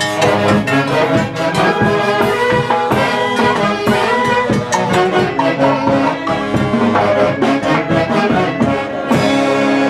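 A live brass band of saxophones and other horns playing lively dance music, with drums keeping a steady beat. About nine seconds in the drumming thins out under a long held horn note.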